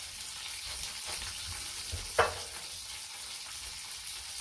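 Sesame-crusted seafood frying in olive oil in a pan, a steady sizzling hiss. A single sharp knock about two seconds in.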